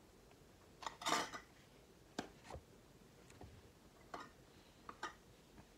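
Scattered light clicks and taps of small objects being handled on a tabletop, with a short, louder scrape a little after one second in.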